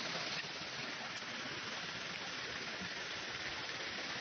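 Floodwaters of a swollen river rushing past in a steady, dense hiss of water with no break.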